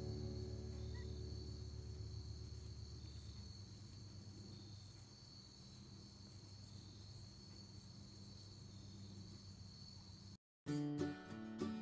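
Faint, steady high-pitched insect chorus, like crickets chirring. Background music fades out over the first few seconds, and near the end, after a brief dropout, acoustic guitar music starts.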